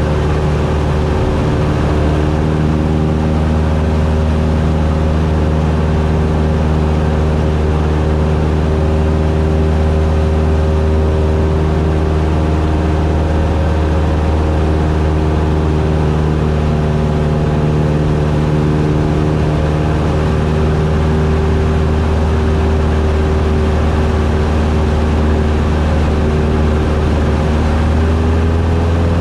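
Cessna 172's piston engine and propeller running steadily in cruise flight, a constant drone with the engine note rising slightly near the end.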